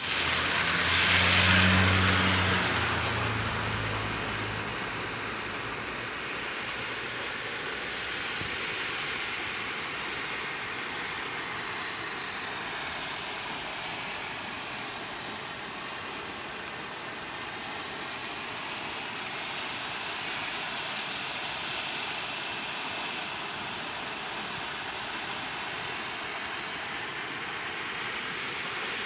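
Steady rushing of water from a discharge pouring into a river after rain. A motor vehicle passes in the first few seconds, louder with a low hum, then fades away.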